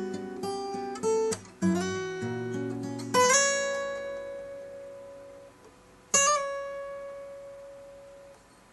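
Takamine ETN20C nylon-string acoustic-electric guitar being played: picked notes and chords for the first three seconds, then a chord left to ring out, and a last note about six seconds in that fades away.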